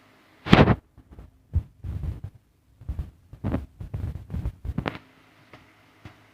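A run of irregular knocks and thumps lasting about four and a half seconds, the loudest near the start, over a steady low hum.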